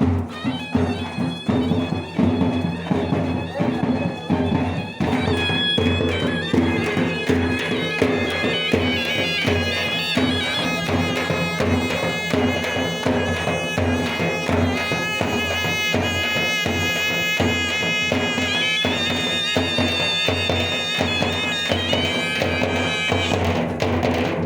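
Music with drums and a wind instrument playing a sustained melody. Drum beats stand out for the first few seconds, the held melody carries most of the stretch, and it breaks off near the end.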